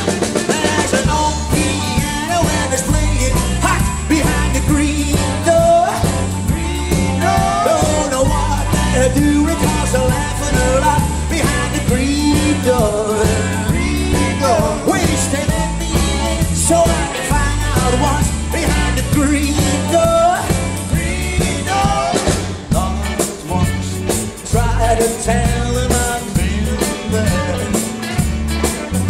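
Live rock and roll band playing loudly: drums keeping a steady beat under bass, piano and electric guitars, with a lead electric guitar line running over the top through a stretch without lyrics.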